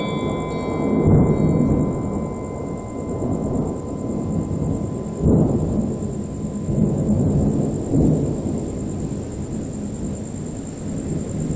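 Thunder rumbling over steady rain, with louder rolls about a second in, about five seconds in and about eight seconds in.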